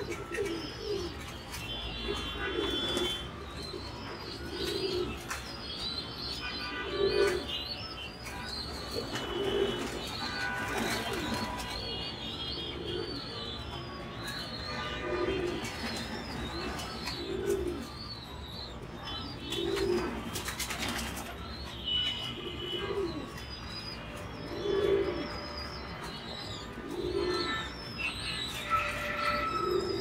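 Domestic pigeons in a loft cooing, low coos coming every couple of seconds, with high thin chirping throughout.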